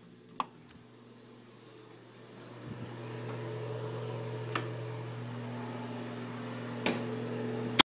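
A steady low mechanical hum that swells about two and a half seconds in and then holds, with a few sharp clicks on top, cutting off abruptly just before the end.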